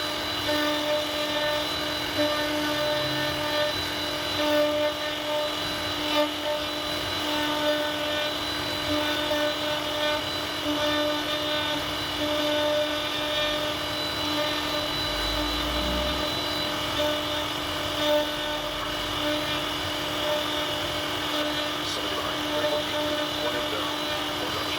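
CNC router spindle running at steady speed while carving wood, giving a constant high whine with no change in pitch.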